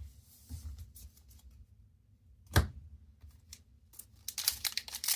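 Quiet handling of trading cards with one sharp tap about halfway through, then the crinkling of a foil booster-pack wrapper being handled near the end.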